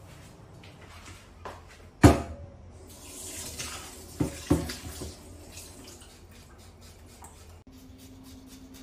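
Tap water running into a stainless steel kitchen sink as a slab of pork belly is rinsed, for a couple of seconds. A sharp knock about two seconds in comes just before the water, and two smaller knocks come during it.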